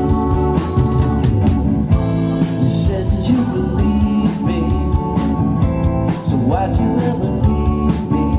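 Live rock band playing: electric guitar, bass guitar, drum kit and electric keyboard, the drums keeping a steady beat under sustained chords.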